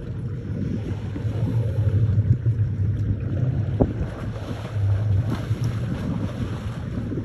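Wind buffeting the microphone over a steady low rumble, with water splashing as an elephant stamps and kicks in shallow river water.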